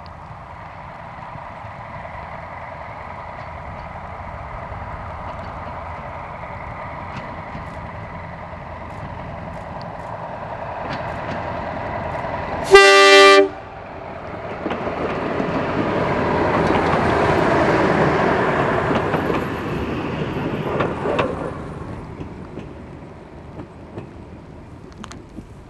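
Walker 280hp railmotor, powered by two Gardner 8LW diesel engines, approaching with a steady engine hum that grows louder. About halfway through it gives one short, loud horn blast, then passes with a rumble of engines and wheels on the rails that fades away as it leaves.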